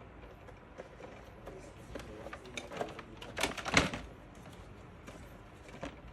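Clicks, knocks and rattles of a folding shopping trolley being opened out, with a louder burst of clatter about three and a half seconds in.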